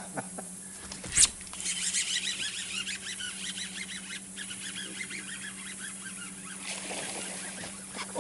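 Birds calling in a rapid series of short chirps over a steady low hum, with one sharp click about a second in.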